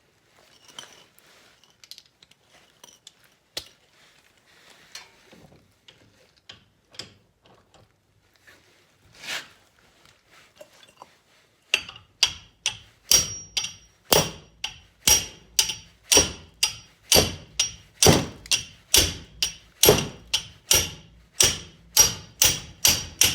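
Scattered light clinks of metal tools, then a hammer striking metal in a steady series of sharp, ringing blows at about two a second, starting about halfway through.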